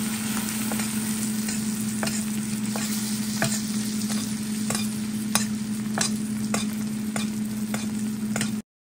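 Filet mignon searing in foaming butter in a stainless steel skillet, sizzling steadily while a metal spoon bastes it, clicking against the pan about three times every two seconds. A steady low hum runs underneath, and the sound cuts off suddenly near the end.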